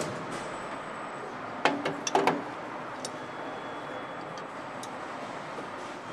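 Steady assembly-hall background noise with a few sharp metallic clanks and clicks as engine parts and trays are handled by hand, the loudest cluster about two seconds in, then lighter ticks.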